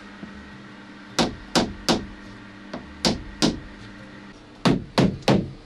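A mallet tapping along a car door's window frame, seating the rubber seal and trim. About nine sharp knocks come in three bursts, the last burst quicker.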